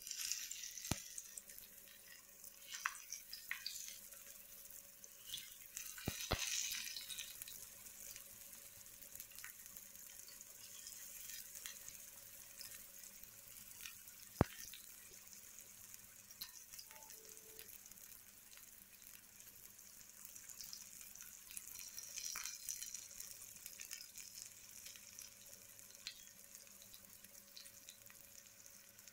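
Masala-coated raw banana slices shallow-frying in a little hot oil on a flat tawa: a steady crackling sizzle that swells several times as more slices are laid in, with a few sharp clicks.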